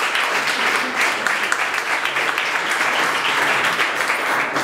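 Audience in a room applauding, dense and steady clapping from many hands.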